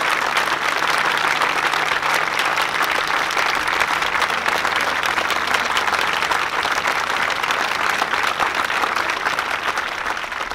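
A large crowd applauding steadily, many hands clapping at once, the applause starting to fade near the end.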